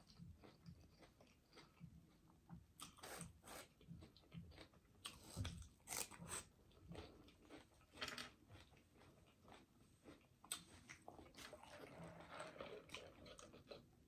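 Close-miked chewing of a mouthful of food, with irregular crisp crunches.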